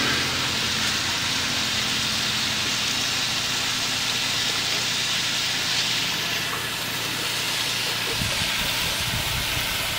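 Chicken masala frying in an iron wok over a gas burner: a steady sizzling hiss, with some low rumbling near the end.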